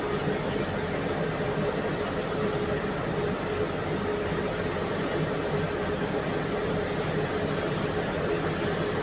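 Large diesel engine of heavy mining machinery running steadily, with a steady whine over the engine noise.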